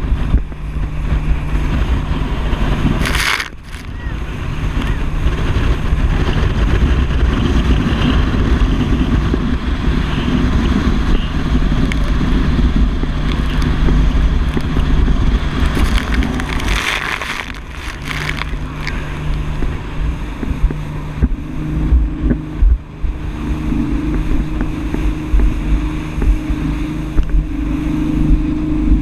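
Speedboat engine running at speed under heavy wind buffeting on the microphone, with water rushing and spray hitting the boat. Two louder bursts of spray or hull slap come about three seconds in and again about seventeen seconds in.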